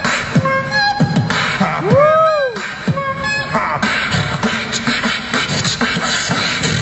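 Beatboxing amplified through a handheld microphone and small amplifier: a steady beat of vocal kick and snare sounds with hissing hi-hat sounds, and a pitched vocal sweep that rises and falls about two seconds in.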